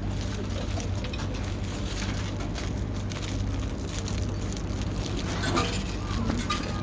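Paper wrapper rustling and crinkling as a burger is unwrapped, with a burst of crackling about five and a half seconds in, over a steady low hum.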